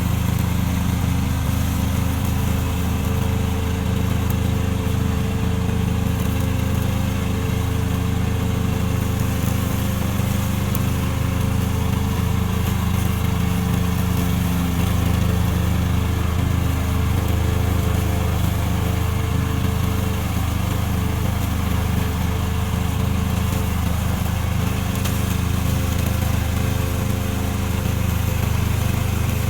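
Remote-control slope mower's engine running steadily at a constant speed, with no change in pitch or level.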